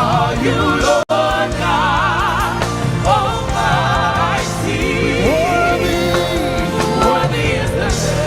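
Live gospel worship music: a band plays under a singer's long, wavering held notes, with no words clear enough to transcribe. The sound cuts out for an instant about a second in.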